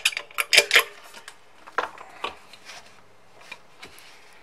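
Clicks and knocks from handling the plastic housing of a Starfrit pressure cooker and pushing the spring-loaded bowl-sensing button in its base. The button is the switch whose dirty contact caused the E4 error. There is a quick run of clicks in the first second, a couple of knocks about two seconds in, then a few faint ticks.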